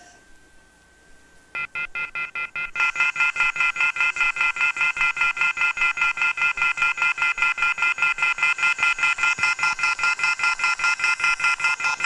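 Telephone off-hook warning tone (the receiver-off-hook howler): a loud, rapidly pulsing chord of several high tones, about five beeps a second. It starts about a second and a half in and gets louder a second later, signalling that a handset has been left off the hook.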